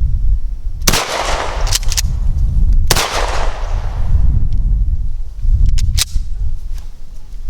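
Two 12-gauge shotgun shots, about two seconds apart, from a Mossberg 590A1 pump shotgun firing lead slugs from mini shells; each shot has a long echoing tail. The pump action clacks back and forth after each shot. Low wind rumble on the microphone throughout.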